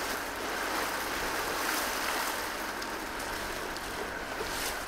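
Steady rush of water and wind: an even hiss of choppy water washing, with no distinct events.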